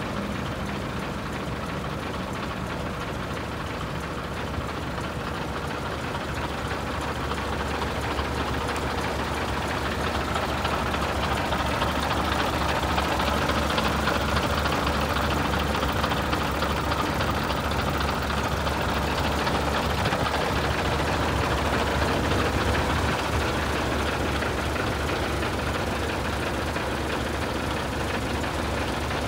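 Scania 143H tipper truck's V8 diesel engine idling steadily. It grows somewhat louder for a stretch in the middle.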